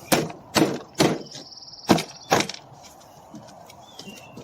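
Sharp knocks and clicks of the car's door panel being pressed and tapped against the door while its retaining clips are lined up: about five strikes in the first two and a half seconds, then a few lighter taps.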